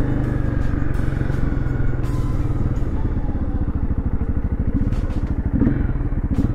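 Dual-sport motorcycle engine running steadily at low speed on a dirt and grass trail, its firing pulses standing out more clearly from about three seconds in. A few light knocks and clatters come from the bike over the rough ground.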